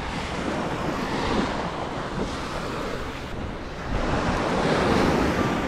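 Ocean surf breaking and washing up the beach, with wind buffeting the microphone; the wash swells louder about four seconds in.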